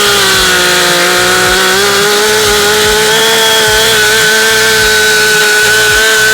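Gas chainsaw held at high revs, its engine pitch steady, as it cuts through a holly tree's trunk in the back cut that fells the tree.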